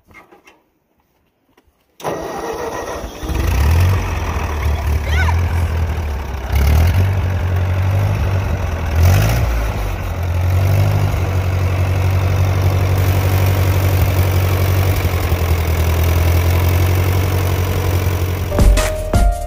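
Old Ford N-series tractor's four-cylinder flathead engine starting up about two seconds in and catching, then running with a few short surges before settling into a steady run. Music comes in near the end.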